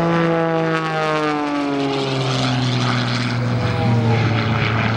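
Wolf Pitts Pro aerobatic biplane's radial engine and propeller droning as it flies past. The pitch drops about two seconds in as it goes by, then holds steady at the lower note.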